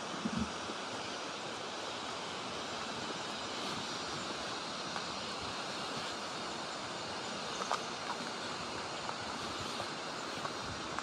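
Steady rush of running water, with a few brief faint knocks and ticks over it.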